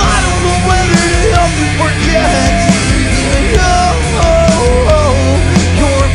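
Heavy rock band playing loudly. A melodic lead line bends in pitch over a dense wall of bass, guitars and regular drum hits.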